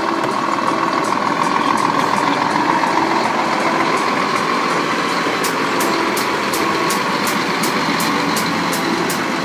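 Scania R-series truck's diesel engine running as the tractor unit and its trailer pull away slowly at close range. From about halfway a fast, regular high ticking joins in, about three ticks a second.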